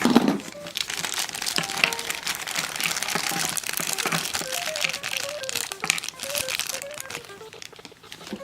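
Plastic packaging crinkling and rustling in irregular crackles as a small boxed toy set is unwrapped by hand.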